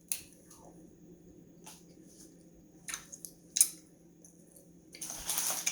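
Chewing on a hard candy snake: a few scattered short clicks and squishy mouth sounds, then a brief rustle near the end.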